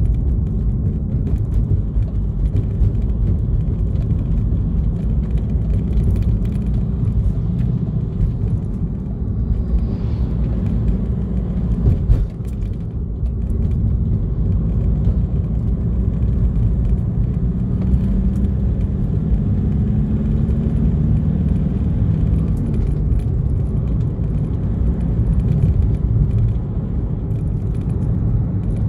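A vehicle driving along the road, its engine and tyre noise a steady low rumble, with faint small rattles and clicks over it.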